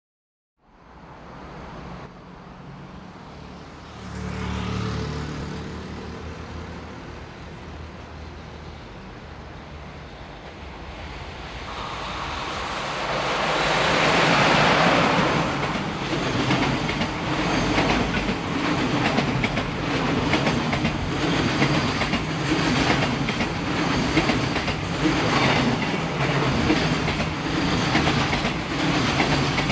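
JR Freight EF66 electric locomotive approaching and passing at speed, loudest about halfway through, followed by a long string of loaded container wagons rolling by with a steady rumble and a regular clickety-clack of wheels over rail joints.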